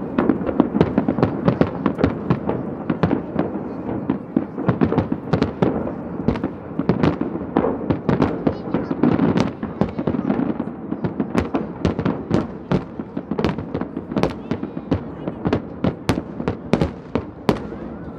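Aerial fireworks shells bursting in quick succession: a dense run of sharp bangs and crackles, thickest in the first half and thinning to fewer, separate reports later.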